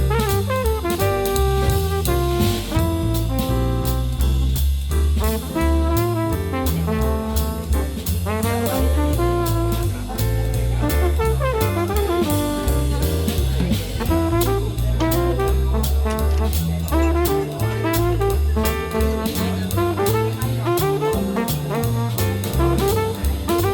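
Upbeat jazz background music: horns playing a melody over a stepping bass line and a drum kit keeping a steady beat.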